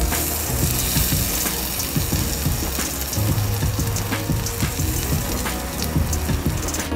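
Egg omelette sizzling on a hot dosa griddle (tawa), a steady hiss with scattered small pops, as tomato juice and pulp are squeezed onto it. Soft background music plays underneath.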